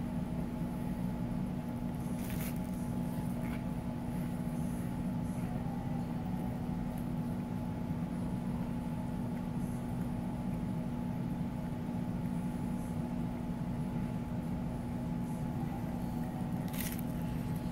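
Aquarium filter and pump equipment running with a steady electric hum. There are a few faint clicks, one about two and a half seconds in and one near the end.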